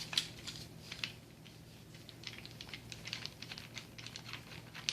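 Faint, irregular small clicks and taps of a pressure washer's high-pressure hose and its fitting being handled as one end is attached to the unit.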